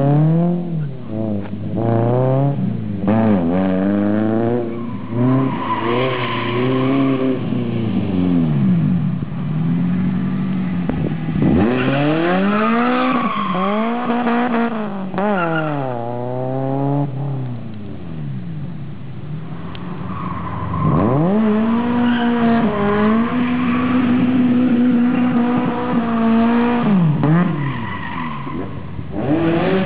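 Toyota AE86's engine through a 4-into-1 OBX header exhaust, revving up and falling back again and again as the car is driven hard, with tyres squealing in several long skids, the longest in the second half.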